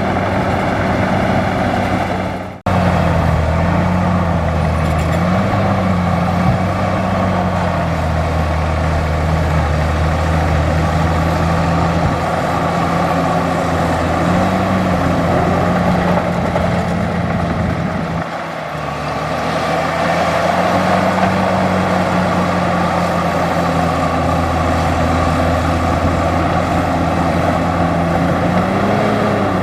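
Large bulldozer's diesel engine running steadily, its pitch wavering up and down slightly as it works. The sound drops out for an instant about two and a half seconds in, and the low drone eases briefly about two-thirds of the way through.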